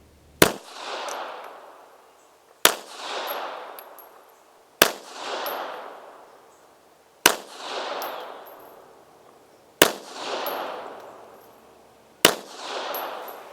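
Astra Model 300 pistol firing six .380 ACP rounds at a steady pace, one shot every two to two and a half seconds, emptying its six-round magazine. Each sharp crack is followed by an echo that swells and dies away over about a second.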